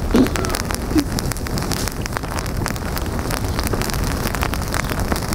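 Freshly lit campfire of birch bark and dry sticks crackling with many sharp snaps, with wind buffeting the microphone.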